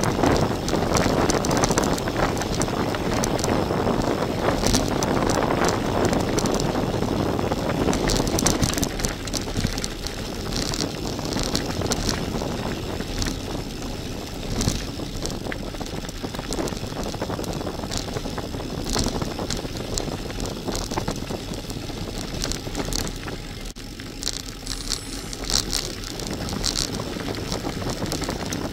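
Gravel bike rolling fast over a loose gravel track: tyre noise and rushing air, heard from a camera mounted on the bike. It is louder for the first eight seconds or so, then eases, with sharp clicks and rattles from stones and the bike running through.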